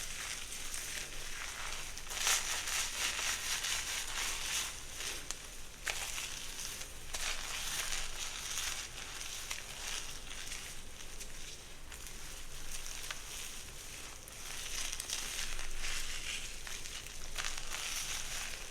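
Hair being worked close to the microphone: a dense, crackling rustle that swells and fades with each stroke.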